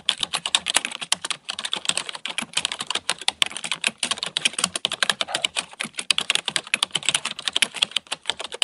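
Plastic wrapper being crumpled and handled: a dense, fast, irregular crackling that stops abruptly just after the end with one louder crackle.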